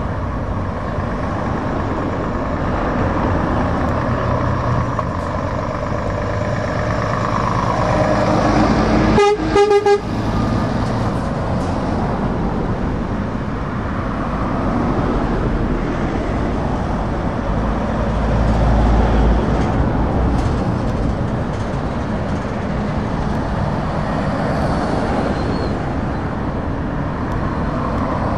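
Lorries and cars passing in a slow convoy, engines running with a deep rumble that swells as the trucks go by. About nine seconds in, a truck's air horn sounds in a few short, loud blasts.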